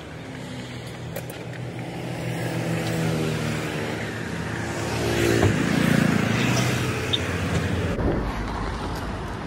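A motor vehicle passing on the road: engine and tyre noise that grows louder to a peak about six seconds in, then fades, over a low outdoor rumble.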